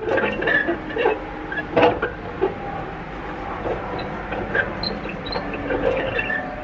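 Air conditioner condenser fan motor running on worn, dry bearings: a steady grinding noise with scattered short squeaks and a few clicks, the sharpest about two seconds in. The bearings are shot from years without lubrication.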